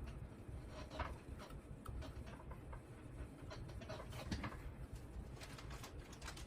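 Faint, scattered small clicks and taps at irregular intervals over a low steady hum: hands handling small plastic and metal parts and wires.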